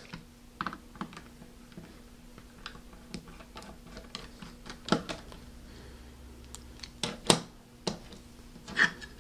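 Light, scattered clicks and taps of a precision screwdriver turning out a screw from an SSD's casing and the casing being handled on a wooden tabletop, with a few sharper knocks about five, seven and nine seconds in.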